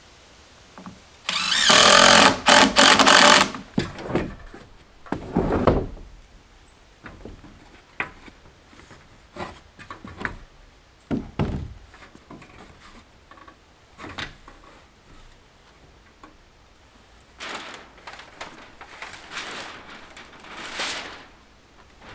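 Power tool running in two bursts of a couple of seconds each, one near the start and one near the end, with scattered knocks and clunks between.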